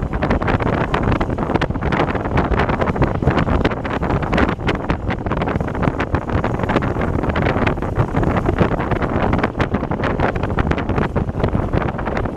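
Wind buffeting a microphone that is moving through the air on a circling amusement-park airplane ride: a loud, steady rush with constant rapid flutter and crackle.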